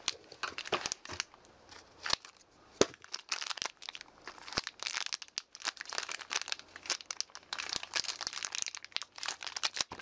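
Thin clear plastic bag crinkling and crackling as fingers work it open around a stack of plastic Vortex discs. There are a few sharp clicks in a quieter stretch a second or two in, then steady crinkling from about four seconds in.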